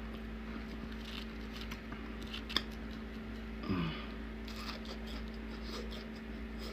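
Close-up eating sounds: chewing with small wet clicks and smacks over a steady electrical hum, with a short hummed "mm" a little past halfway.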